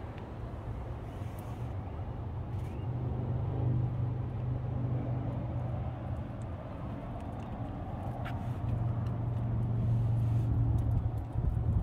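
A car engine idling with a steady, even hum, and a few faint clicks of handling over it.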